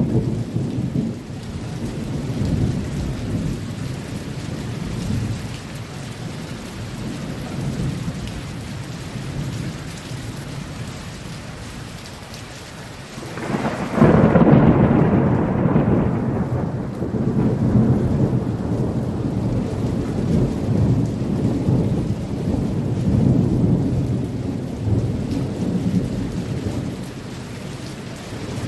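Steady rain with low rolling thunder. About fourteen seconds in, a loud thunderclap breaks suddenly and rolls on in long rumbles that rise and fall.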